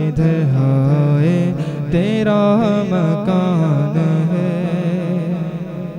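A man's solo voice singing a naat into a microphone, unaccompanied, drawing the closing line out in long, ornamented held notes with a wavering vibrato, fading out near the end.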